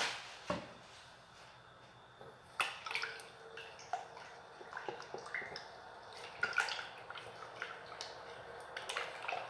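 Cake batter being stirred by hand in a stainless steel mixing bowl: irregular wet clicks and taps of the utensil against the metal, with a single thud about half a second in.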